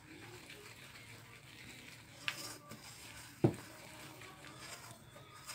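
Eggs being worked into flour by hand in a glass bowl: faint soft stirring, with a sharp click a little over two seconds in and a louder knock about a second later.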